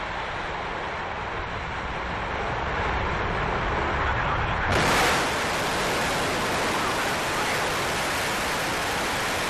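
Soyuz-2.1b rocket engines at liftoff, heard as a steady, even rush of noise. Just before halfway the sound changes abruptly and becomes louder and brighter, as the audio switches to another camera feed.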